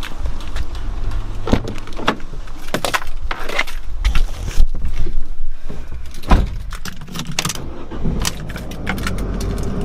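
Keys jangling, with clicks and knocks as a Fiat 500's driver's door is opened and someone gets in, and a heavy thud about six seconds in as the door shuts. About eight seconds in, a steady low engine hum begins as the car starts and idles.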